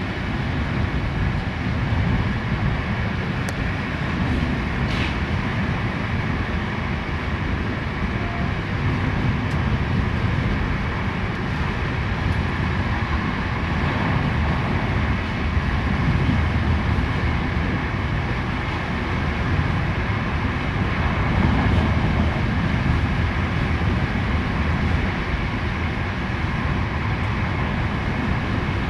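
Passenger coach running at speed: steady rumble of the wheels and running gear on the track, heard from inside the coach corridor.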